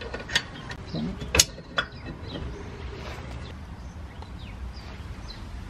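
A few metal clinks and clanks as the freed rear brake rotor of a 2019 Subaru WRX is worked off the hub with a ratchet and bolt. The sharpest clank comes about a second and a half in.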